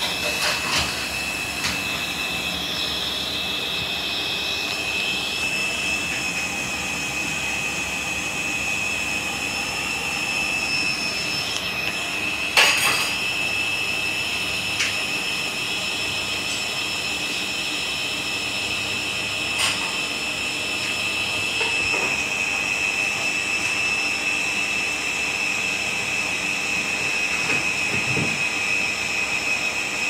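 Hoover washing machine running in a suds lock, with too much foam in the drum: a steady mechanical run with a high whine, broken by a few sharp clicks and knocks, the loudest about halfway through.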